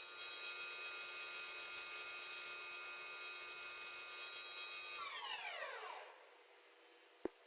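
CNC machine spindle running with a steady high-pitched whine, then spinning down about five seconds in, its whine falling in pitch as it stops. A sharp click near the end.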